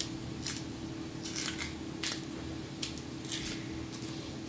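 Green banana skin being pried and stripped off by hand: a series of short, crisp ripping and snapping sounds, one every half second to a second, over a faint steady hum.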